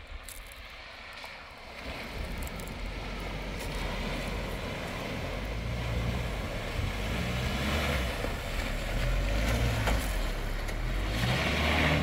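A four-wheel-drive SUV's engine running as it drives through a shallow creek crossing, with water splashing and rushing around its wheels. The sound grows steadily louder as the vehicle comes closer.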